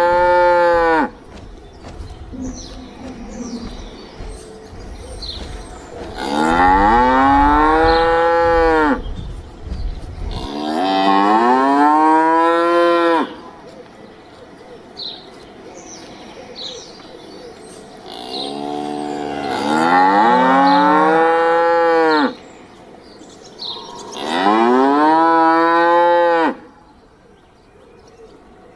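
A cow mooing again and again: the tail end of one moo, then four long moos a few seconds apart, each rising and then falling in pitch.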